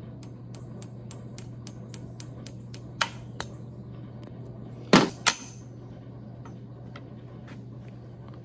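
Ball-peen hammer tapping on a steel U-joint yoke, driving its cap and retaining clip home: a run of light taps about three a second, then two harder metal strikes close together about five seconds in.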